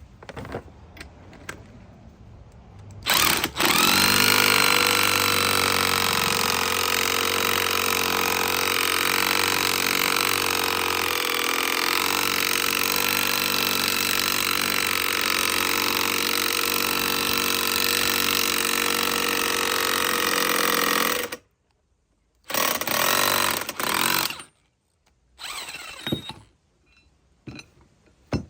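A motor-driven tool runs steadily for about eighteen seconds, its pitch dropping and settling just after it starts, then cuts off suddenly; a second, shorter run follows about a second later.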